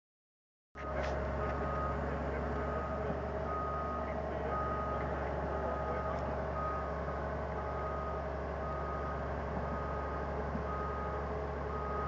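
Diesel engine of a trackhoe (tracked excavator) running steadily, with its backup alarm beeping about once a second. The sound starts suddenly under a second in.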